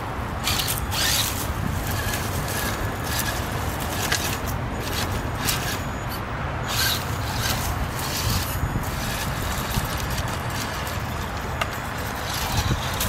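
Traxxas TRX-4 Sport RC crawler climbing over a pile of logs, its paddle tires scraping on bark and crunching dry leaves in irregular bursts over a steady low rumble.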